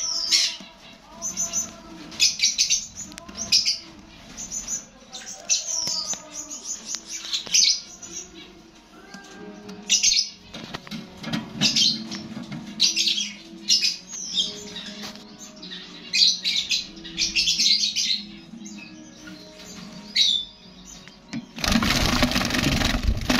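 Several caged Java sparrows chirping over and over in short high notes. Near the end a loud burst of wing flapping as one flutters close. A background music tune runs underneath.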